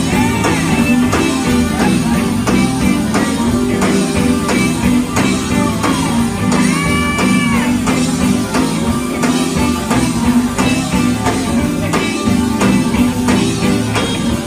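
Live gospel band playing: electric guitar, keyboard and drum kit over a steady beat, amplified through stage speakers.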